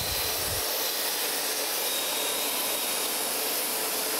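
Surface grinder's abrasive wheel grinding a steel straight edge: a steady high hiss of the wheel cutting, with a brief low bump at the start. The wheel is taking a cleanup pass to grind a taper out of the milled surface.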